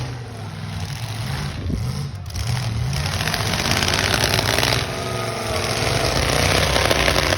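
Engines of several demolition derby cars running and revving, with a low rumble that gets louder and noisier from about three seconds in.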